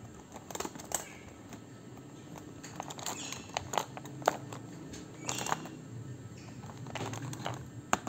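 Plastic pens clicking and clattering against one another and the cardboard box as a ringneck parrot rummages through them with its beak and pulls one out. The clicks come irregularly, in small clusters, the sharpest about four seconds in.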